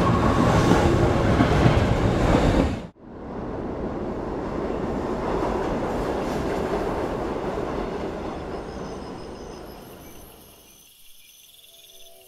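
A loud rushing noise that cuts off suddenly about three seconds in, then the rumble of a passenger train running on the rails, which slowly fades away. Soft music with bell-like tones comes in near the end.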